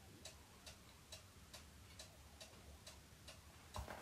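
Faint, even ticking, about two ticks a second, with a soft knock near the end.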